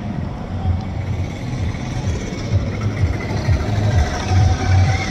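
A motor vehicle engine running with a low, uneven rumble.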